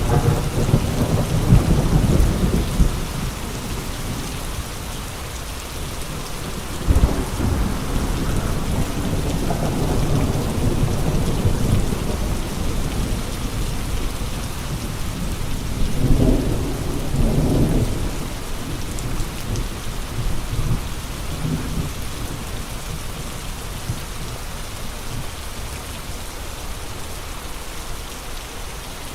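Steady heavy rain with gusting wind, the gusts rising in deep rumbling surges three times: at the start, about seven seconds in, and around sixteen seconds in.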